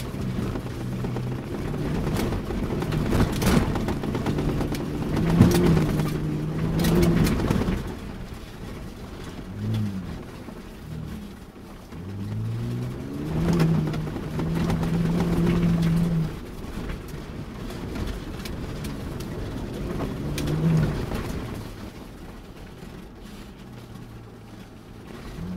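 Ford Bronco Raptor's twin-turbo V6 heard from inside the cab, its pitch rising and falling several times as the throttle comes on and off. Tyres rumble over rutted gravel, with a few knocks as the truck goes over bumps.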